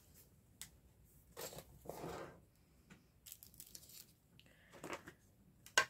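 Paper being handled on a craft table: a few short rustles and scrapes of paper, with a sharp tap just before the end.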